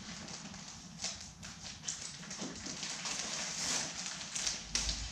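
Plastic packaging crinkling and rustling as bagged light-kit parts are handled in a soft carrying case, with small irregular knocks and a dull thump near the end.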